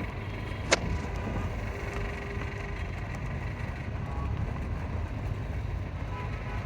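Steady city street ambience in the rain, a constant rumble of passing traffic, with one sharp click less than a second in.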